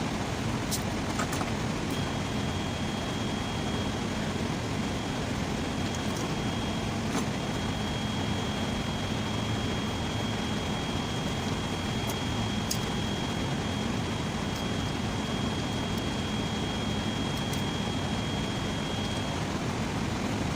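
Steady low rumbling background noise, with a thin high steady whine through most of it and a few light, sharp clicks.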